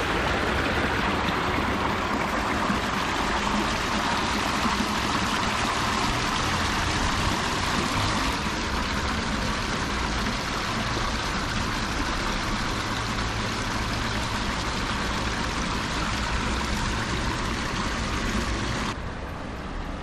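Spring water gushing steadily from several wall pipes and splashing into a concrete channel, with a low rumble of road traffic underneath. The splashing drops off sharply near the end.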